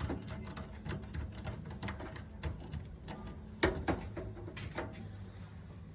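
Irregular small clicks and taps of screws and a screwdriver on a computer cabinet's metal chassis as the motherboard is screwed in, the sharpest click a little past halfway in, over a steady low hum.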